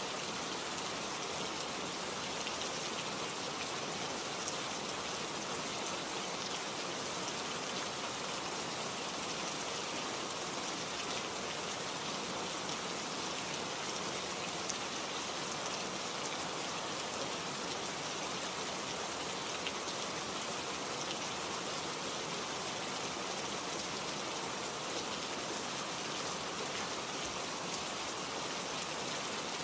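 Steady rain falling, with the fine patter of many drops hitting a surface and no letup.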